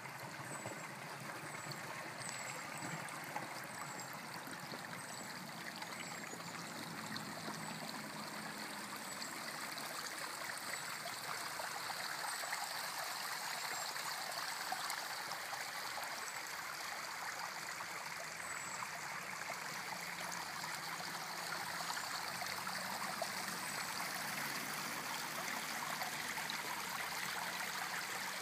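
Spring water running along a shallow stone-lined channel and over rocks, a steady rush that grows a little louder about a third of the way in. Short high chirps come and go faintly over it in the first half.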